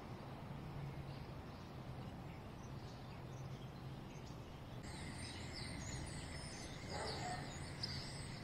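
Outdoor residential street ambience: a low steady rumble, with small birds chirping from about five seconds in.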